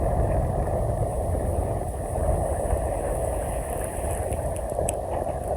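Steady outdoor background noise: a low rumble and hiss with no distinct calls or knocks.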